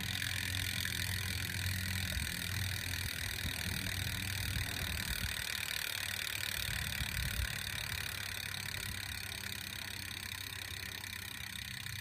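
Freewheel of a brand-new Specialized Fatboy Pro fat bike's rear hub buzzing steadily as the wheel spins, easing off slightly toward the end: the normal sound of a new, healthy freewheel.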